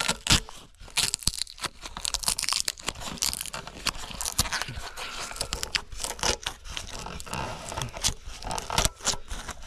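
Duct tape being peeled off the metal case of a factory engine computer, tearing and crinkling in a series of short, irregular rips.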